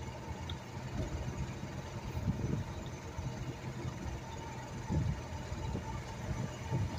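Vehicle driving along a rough dirt track: a steady low engine and road rumble with uneven jolts.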